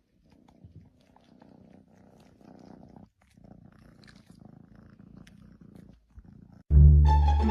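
A domestic cat purring quietly, in stretches with short breaks between breaths. Loud music cuts in suddenly near the end.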